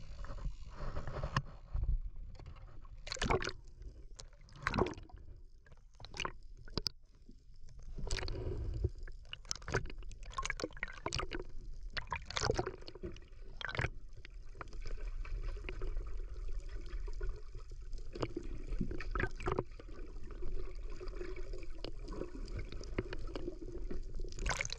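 Seawater heard through a camera held under the surface beside the boat: muffled sloshing and gurgling with a run of sharp knocks and splashes in the first half, then a steadier low rush. Near the end there is a loud splash as the camera breaks the surface.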